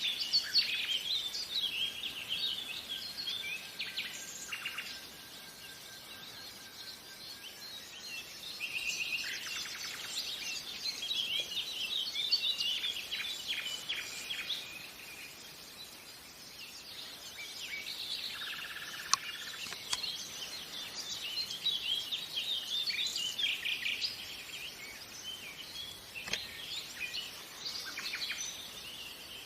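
Nightingale singing in varied phrases of rapid chirps, trills and whistles, with short pauses between phrases, over a faint background hiss.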